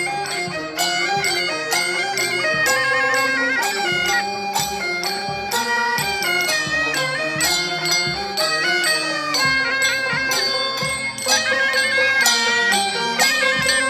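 Traditional Chinese funeral band music: a loud, reedy wind instrument plays an ornamented melody over percussion strokes.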